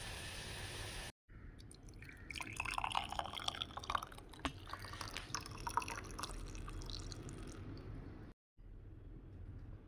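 After about a second of steady hiss, water is poured into a vessel, splashing and dripping, with a tone that rises as the vessel fills. The sound stops abruptly twice at edits.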